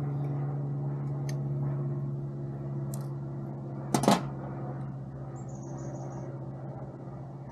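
A steady low mechanical hum runs throughout, with a few light ticks and a sharp double clack about four seconds in.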